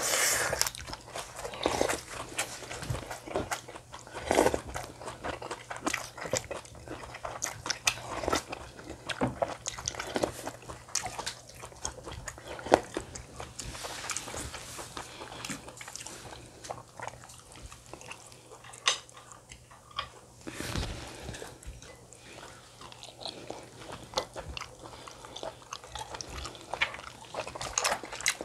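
A person chewing and biting into food close to the microphone, with frequent irregular short clicks throughout.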